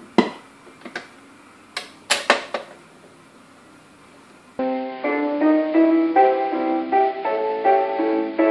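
A few scattered clicks over faint hiss, then, a little past halfway, instrumental music starts abruptly: a run of quick, separate melodic notes.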